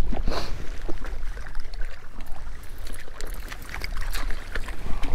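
Steady low outdoor rumble with scattered light clicks and scrapes of boots stepping over loose shoreline rocks.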